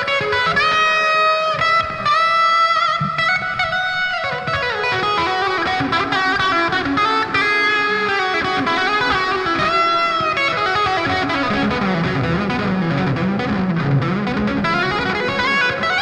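Electric guitar played through Neural DSP Archetype amp-sim plug-ins in stereo: an improvised ambient passage of sustained, overlapping notes. Near the end, low notes swoop down in pitch and back up several times.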